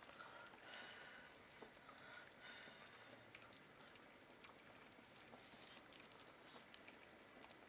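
Faint simmering of a lidded pot: small scattered bubbling pops and ticks from a pork knuckle braising in red wine under a glass lid.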